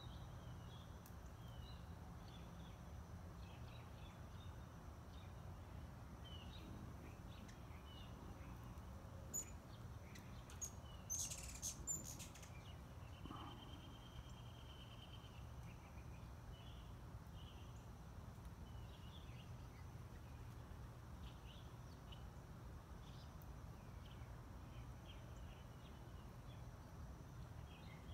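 Faint, scattered chirps of small birds over a steady low background rumble, with a few sharp clicks near the middle and a short steady whistle just after them.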